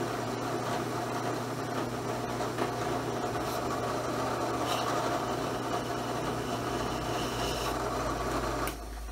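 Drill press motor running steadily, spinning a leather strop wheel with a skew chisel held against it for stropping; the hum cuts off near the end.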